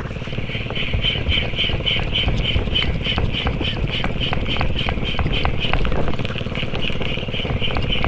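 Spinning reel being cranked to retrieve a lure: a fast, even ticking whir about four or five times a second that breaks off briefly about six seconds in, over a low rumble.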